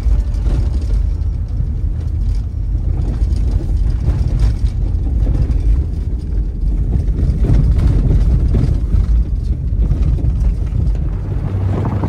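A vehicle driving, heard as a low rumble of engine and tyres that rises and falls in loudness.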